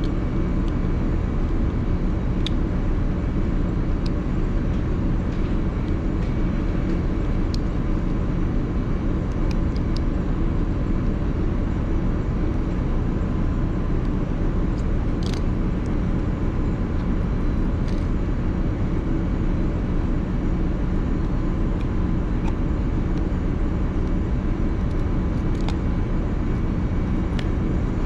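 Steady low drone of a ship's running machinery with a constant hum. A few faint, scattered clicks from small tools touching the metal sensor block.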